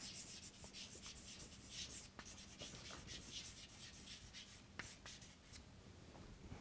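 Chalk writing on a blackboard: faint, quick scratching strokes as words are written, stopping shortly before the end.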